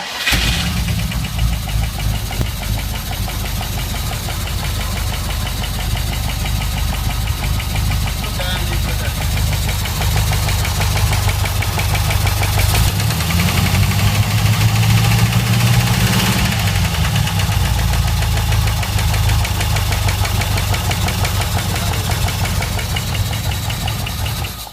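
Rover car engine catching and running with a knock. It runs a little harder through the middle, then cuts off suddenly when switched off.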